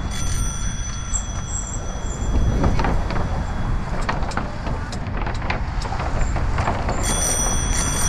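Wind rumbling on a helmet-mounted camera while a bicycle rolls over the bridge's wooden deck planks, with scattered clicks between about two and six seconds in.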